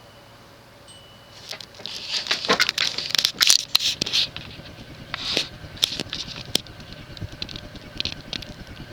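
Evergo ceiling fan's cast aluminum spinner motor running at medium speed with a low steady hum, overlaid from about a second and a half in by irregular crackling and rustling clicks, densest for the next three seconds and then sparser.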